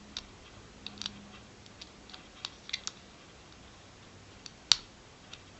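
Faint, irregular metallic ticks and clicks from a pick and tension wrench working the pin stack of a stainless steel disc padlock held in a false set, which the picker takes for spool pins. One sharper, louder click comes about three quarters of the way through.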